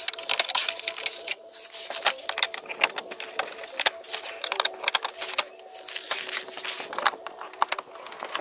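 Irregular plastic clicks and rattles from hands working out push-pin retainer clips on the underside of a Subaru Crosstrek's front bumper fascia.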